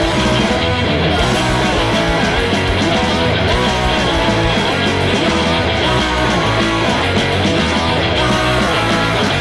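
Loud rock music with electric guitar, playing continuously at an even level.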